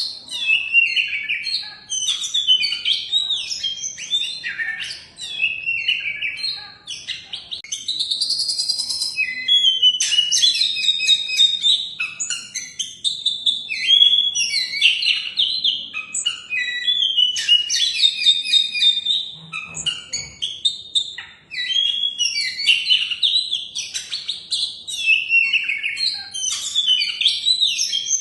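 Oriental magpie-robin (kacer) singing a long, continuous song of quick, varied whistled phrases, broken by a few brief pauses.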